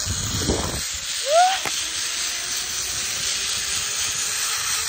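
Steady rushing hiss of a zip-line ride: the trolley's pulley running along the steel cable, with wind across the phone's microphone. A short rising squeal about a second and a half in.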